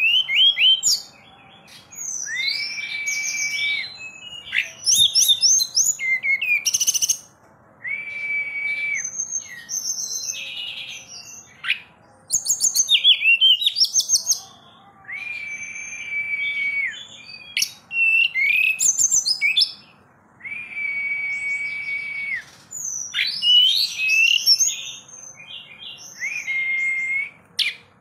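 Caged tledekan gunung (sulingan gunung) singing steadily, in full song: long, level, flute-like whistles of one to two seconds alternate with fast, varied twittering phrases.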